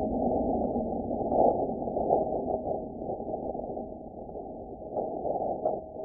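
Seismic waves of a meteoroid impact on Mars, recorded by NASA's InSight lander seismometer and sped up into hearing range: a low, crackly rumble with scattered clicks and a few swells, slowly fading away.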